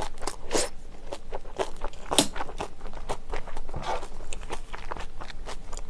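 A person chewing close to the microphone, a mouthful of saucy shredded pork with a fast run of wet mouth clicks and smacks. A sharper click comes about two seconds in.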